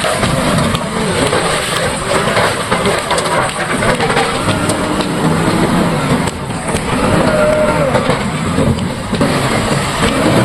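JCB 3DX backhoe loader's diesel engine running under load, its pitch rising and falling as it works.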